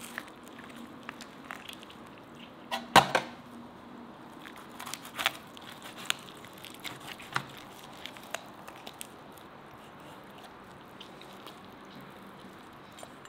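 A large knife cutting into a spit-roasted chicken, the pieces being pulled apart by hand: scattered clicks and knocks. The loudest is a sharp knock about three seconds in, and the clicks thin out and grow softer in the second half.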